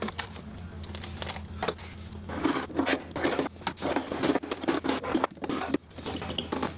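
Plastic oil catch can and its rubber hoses being handled and worked into a tight engine bay: irregular scraping, rustling and small plastic clicks and knocks, busier in the second half.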